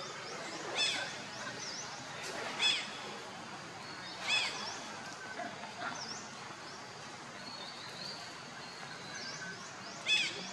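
Outdoor forest ambience with a short, high animal call repeated four times, each rising and falling, over faint repeated chirping.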